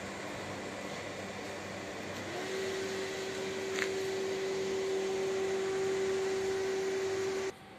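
Electric train running nearby: a steady hum and rush with a steady whine that comes in about two and a half seconds in, and a short click near four seconds in. The sound cuts off abruptly just before the end.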